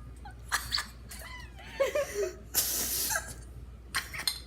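A short hissing rush of noise, lasting about half a second, a little past the middle, amid a few light clicks and brief vocal sounds.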